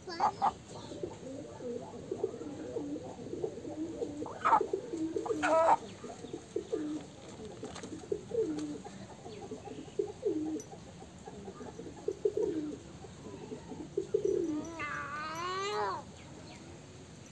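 A restrained chicken giving a run of short, low repeated calls, with a longer, louder wavering call near the end.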